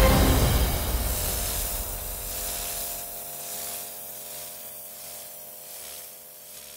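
Kärcher K7 pressure washer spraying: a steady hiss of the water jet that fades away gradually.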